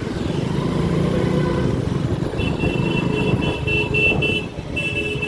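City street traffic heard from a moving motorcycle: engines running steadily amid the surrounding two-wheelers and cars. From about halfway through, a high-pitched beeping comes and goes in short pulses.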